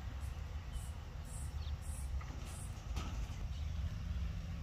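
Outdoor ambience: a steady low rumble with a few faint bird chirps and soft, evenly repeating high-pitched pulses in the first couple of seconds.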